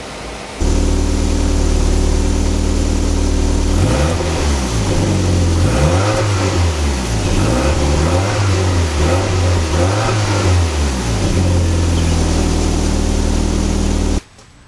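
Toyota MR2 Turbo's turbocharged four-cylinder engine running. It starts suddenly at a steady idle, is revved up and down several times about two seconds apart, and settles back to idle before cutting off abruptly near the end.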